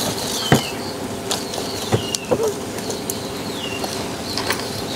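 A bird chirping: short, high, falling chirps repeated every second or so, with a few sharp knocks among them.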